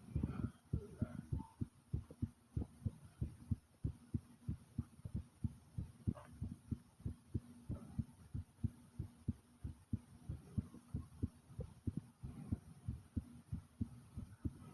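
Human heartbeat, loud and fast: a steady run of low paired thumps, about two beats a second.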